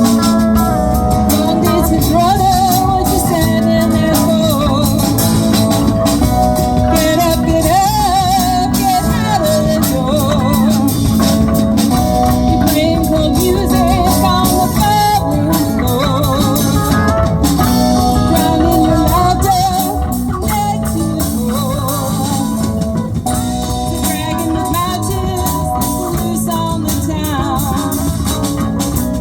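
Live rock band playing, with drum kit and guitar; the music gets a little quieter about two-thirds of the way through.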